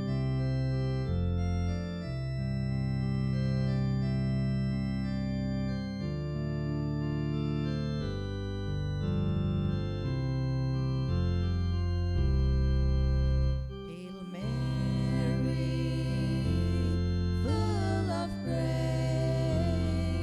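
Organ playing a slow hymn introduction in sustained chords that change every second or two. About 14 seconds in, a second melody line with vibrato comes in above the chords.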